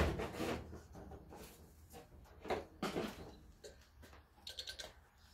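Handling noises: a knock at the start, then a few separate clunks and clatters of things being picked up and set down, with a quick run of light clicks near the end.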